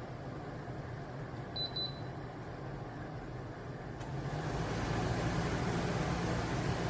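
De'Longhi Pinguino portable air conditioner running with a steady fan noise and low hum. A short electronic beep of three quick pips comes early on. About four seconds in there is a click, and the running noise steps up louder and stays there.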